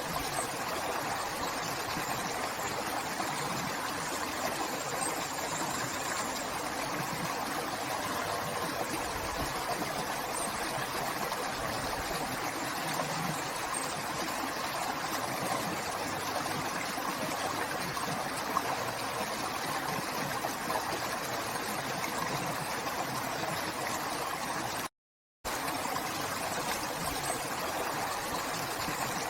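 River water running steadily, a continuous rushing. Once, near the end, the sound cuts out completely for about half a second.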